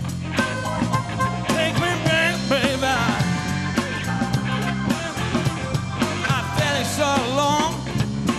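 A live blues-rock band playing: electric guitar and keyboard over a steady drum beat, with a voice singing.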